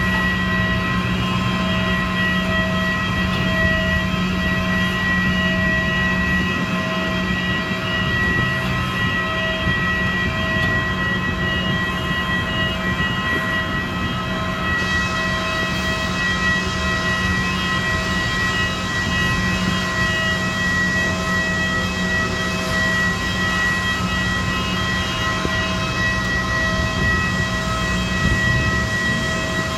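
Steady hum and high-pitched whine of airliner ground machinery at the gate, with a tone pulsing on and off about once a second underneath.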